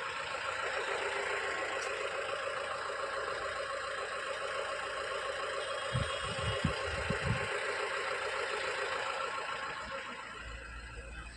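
Vehicle engine running steadily, heard from inside the cab, with a few dull low thumps about halfway through.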